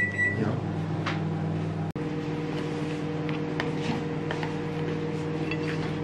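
Microwave oven running with a steady electrical hum, just after a short high beep at the very start. Faint light clicks sit over the hum.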